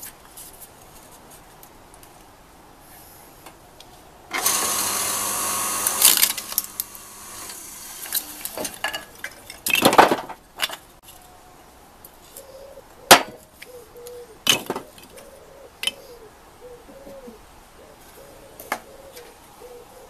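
Log splitter's motor running for about three seconds, from about four seconds in, with a steady hum. A loud crack of wood splitting comes near ten seconds in, then a few sharp knocks of split kindling sticks.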